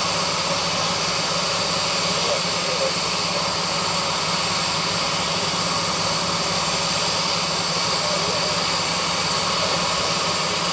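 Natural gas escaping from a ruptured gas line: a steady, jet-like hissing rush, with a steady low hum underneath.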